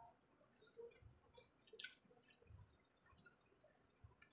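Near silence: faint, soft squishing and clicking of a bare hand mixing rice with fish curry on a steel plate, with quiet chewing, over a thin steady high whine.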